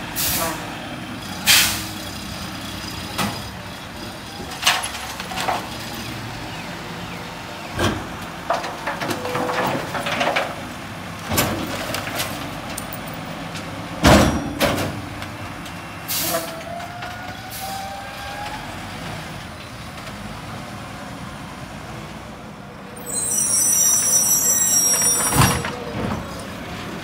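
Mack LR garbage truck's diesel engine running at idle while trash is loaded at the rear hopper, with repeated sharp bangs and clatters. A loud air-brake hiss comes near the end as the truck gets ready to move off.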